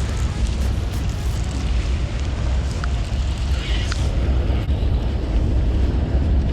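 Steady low rumble of wind buffeting the camera microphone out on the open river, with a brief faint higher sound about three and a half seconds in.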